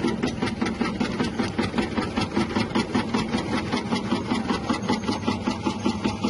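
Electric tuber slicing machine running, its 180-watt motor humming while the rotating blade chops through cassava or sweet potato in a fast, even clatter of cuts, several a second.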